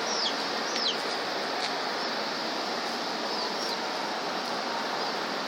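A few short, high, falling bird chirps, the clearest near the start and about a second in, over a steady background hiss.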